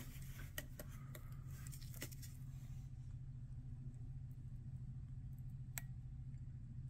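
Quiet room tone: a low steady hum, with a few faint clicks in the first two seconds and one more near the end.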